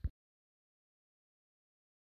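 Dead silence with no room noise, after a single short tap at the very start.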